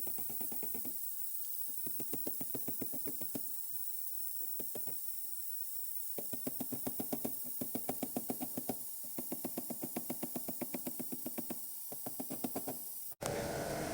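Rapid light tapping in bursts of a second or more, about ten taps a second, of a tool on a car's sheet-metal body panel during dent repair, over a steady hiss. Near the end it cuts suddenly to a louder, different noise.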